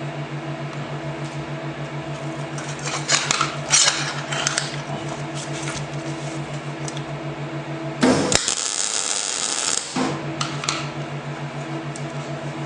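MIG welder tack welding steel: a steady pulsing hum, with short crackles about three to four seconds in and a loud two-second burst of arc crackle about eight seconds in.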